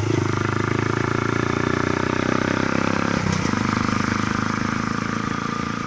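Honda Grom's 125 cc single-cylinder four-stroke engine running under way at steady throttle. About three seconds in, its pitch drops sharply and then holds steady at the lower note.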